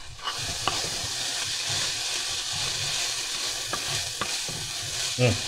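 Black beans, peppers and onions sizzling in a hot frying pan while a wooden spoon stirs them, with a few light knocks of the spoon against the pan.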